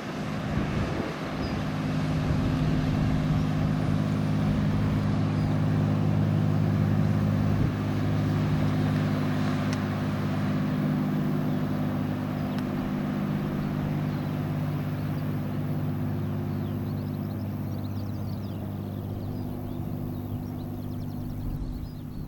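Steady low drone of a passing tanker's diesel engine, loudest early on and slowly fading as the ship moves away.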